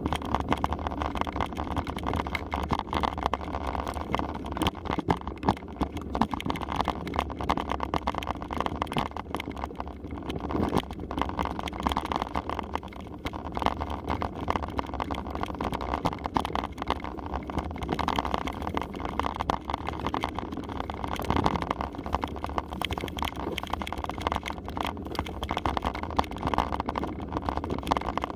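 Mountain bike rolling over a rough dirt trail: steady rolling noise with constant small knocks and rattles.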